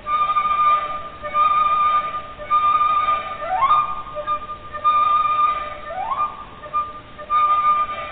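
Instrumental background music: a high melody line of long held notes in repeated phrases, swooping upward twice.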